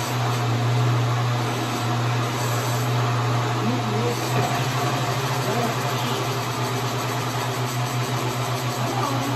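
Countertop glass-jar blender running, its motor steadily churning a thick smoothie of frozen berries, bananas and juice. From about halfway through, the motor sound pulses rapidly as the blades work through the frozen fruit.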